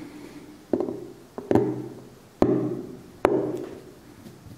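Steel seal-carving knife cutting into a hard seal stone: four sharp cracks, a little under a second apart, each with a short ringing tail as chips break off. The stone is of low quality, harder than good stone, so each cut takes real force.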